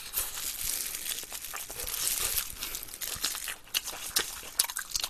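Close-miked eating sounds: crispy glazed fried chicken being chewed, mixed with the crinkling of a disposable plastic glove. The sound is a steady crackle with many small clicks.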